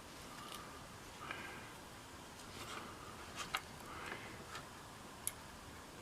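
Faint clicks and light taps from soldering work, tinning and soldering a wire lead onto a speaker terminal. There are a few sharp clicks, the loudest about three and a half seconds in.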